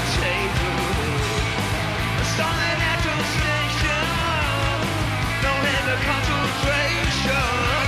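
Hard rock band playing live: electric guitars, bass and drums in a dense, steady mix.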